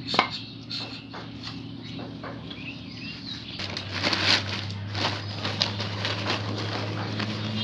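Irregular clinks and knocks of hand tools and steel saw blades being handled and tapped, over a steady low hum; the knocking grows busier and the hum stronger about halfway through.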